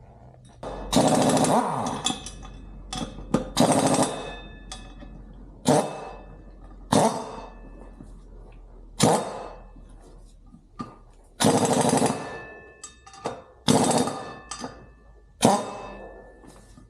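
Impact wrench tightening the bolts of a new rear sprocket on a motorcycle wheel hub, in about eight short hammering bursts of half a second to a second each, with pauses between them as it moves from bolt to bolt.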